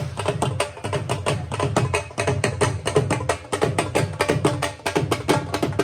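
Music driven by fast, even drum strokes, several a second, over a steady low accompaniment.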